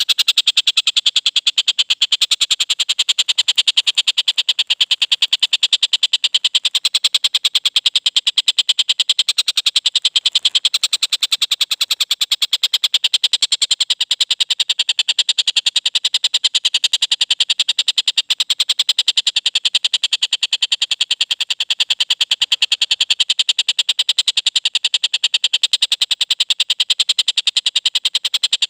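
Collared kingfisher (tengkek buto) calling: a loud, fast, unbroken series of sharp, clear notes.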